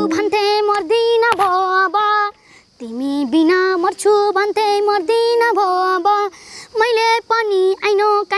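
A young girl singing a Nepali folk song solo and unaccompanied, in a high voice. She sings phrase after phrase, with a short break about two and a half seconds in.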